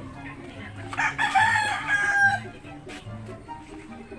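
A rooster crowing once, starting about a second in and lasting about a second and a half.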